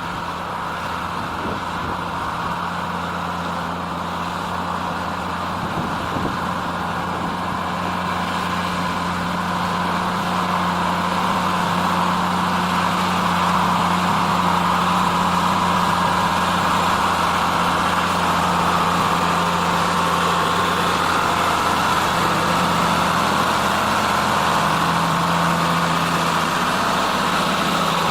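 John Deere 3650 tractor's six-cylinder diesel engine running steadily while ploughing, growing louder over the first dozen seconds and then holding level.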